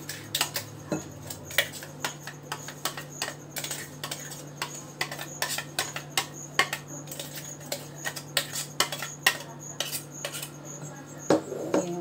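A metal spoon clicking and scraping against a steel mixer-grinder jar and a glass bowl: many quick, irregular clinks, several a second, as thick batter is spooned out of the jar.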